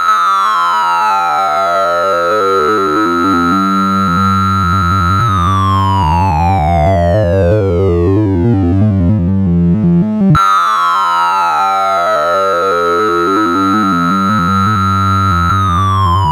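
Synthesized tones from a sorting-algorithm sonification: a dense cluster of beeping tones, many of them sliding steadily downward in pitch. They start suddenly, cut off about ten seconds in, and the same falling pattern starts over.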